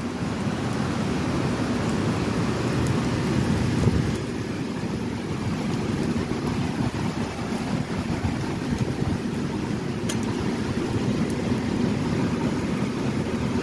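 Heavy rain pouring steadily: a dense, even hiss over a low rumble, with a couple of faint ticks near the end.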